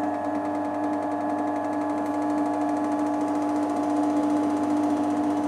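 Biltema BD5512 bench drill running with a steady motor hum and a fast, even clicking. The clicking comes from a newly fitted cable barely touching the spindle's speed sensor.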